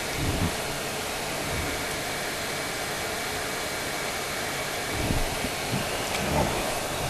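Hot air wand of an 853D rework station blowing a steady stream of hot air, with a few low thumps from handling, the loudest near the end.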